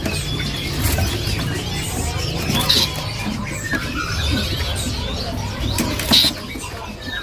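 Many caged songbirds chirping and calling together over a low background hum, with two sharp, loud squeals about three and six seconds in.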